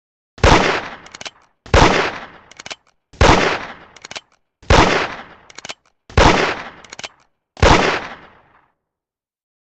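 Colt single action revolver fired six times, about one shot every second and a half, each shot's report dying away over about half a second. Between shots come short metallic clicks of the hammer being cocked for the next shot.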